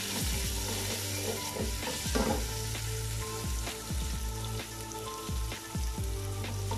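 Sliced onions and ginger-garlic paste sizzling in hot oil in an aluminium pot, being fried toward light golden. A wooden spoon stirs them, with a few short scrapes and knocks against the pot.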